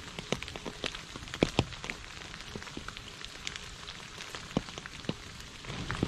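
Steady rain falling into a shallow puddle and onto wet leaves: an even hiss with many single drops plinking into the water, two louder plops about a second and a half in. A low rumble swells in near the end.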